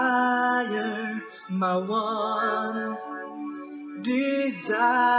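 A gospel song being sung over backing music, the voice holding long notes with a slight vibrato.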